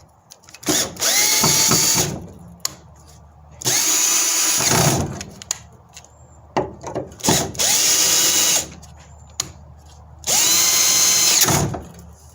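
Black & Decker GoPak 12V cordless drill tightening screws in a gate hinge in four short runs of about a second and a half each. The motor whine rises as each run starts and falls away as it stops, with small clicks between runs.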